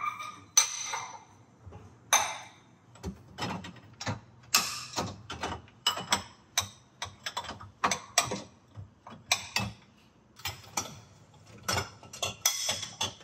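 Ceramic bowls and dishes being set into a dishwasher rack: a run of irregular clinks and knocks, one or two a second.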